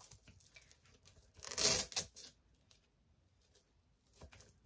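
Packaging being handled: faint rustles and small clicks, with one loud rip or crinkle lasting about half a second, about a second and a half in.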